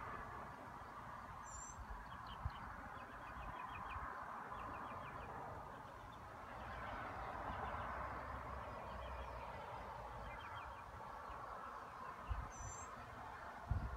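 Small birds calling in quick chirping trills over a steady outdoor hum, with a couple of high single chirps. A few low thumps of wind or handling on the microphone come near the end.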